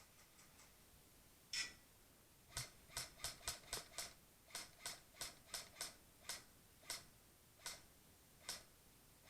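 Airsoft gun firing single shots as sharp cracks. One comes about a second and a half in, then a rapid run of about three to four shots a second that spaces out toward the end.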